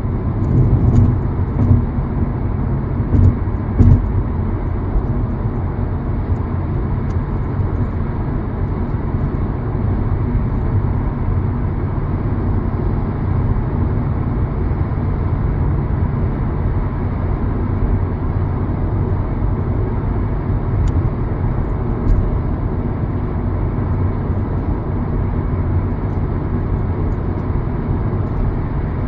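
Steady low rumble of a car driving, engine and road noise as one even drone, with a few faint knocks about a second in, around four seconds in and again about twenty-one seconds in.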